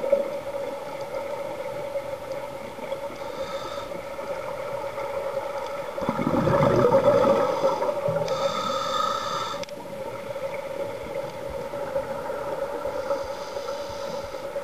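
Scuba diver's regulator breathing heard underwater: hissing inhalations a few seconds in, just past the middle and near the end, with a louder rush of exhaled bubbles about six seconds in, over a steady hum.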